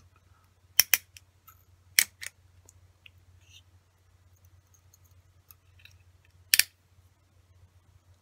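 Sharp clicks of a steel wire-twisting instrument against wire and a plastic demo tool as the wire is twisted. Two clicks come about a second in, two more at two seconds and one near the end, with faint ticks between them over a low steady hum.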